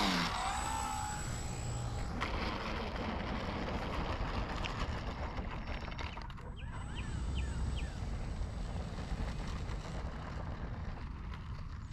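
Steady low outdoor rumble picked up by a small camera slung under a radio-controlled model plane resting on the runway, with a few short bird chirps around the middle. A brief louder rush at the very start comes as the plane touches down.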